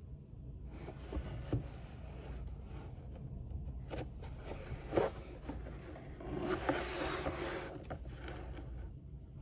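A cardboard box handled and turned in gloved hands: irregular scraping and rubbing of the cardboard, with a few light knocks. The sharpest knock comes about five seconds in, followed by a longer stretch of rubbing about two seconds later.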